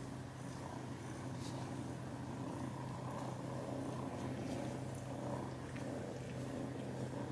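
Domestic cats purring steadily in a continuous low rumble, with no pauses.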